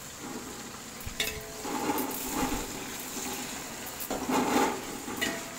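Sliced onions, green chillies and fresh mint frying in oil in a large metal pot, with a steady sizzle. A spoon stirs and scrapes against the pot in two spells, with a few sharp metallic clicks.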